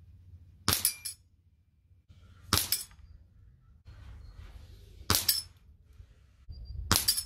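Four shots from a .177 Theoben Sirocco gas-ram air rifle, about two seconds apart, each a sharp report followed at once by the metallic clink of the pellet knocking down a steel plate on a knockdown target.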